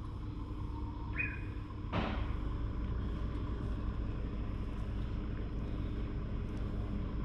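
A steady low rumble that grows louder about two seconds in, together with a sharp knock at that point. A short high chirp comes about a second in.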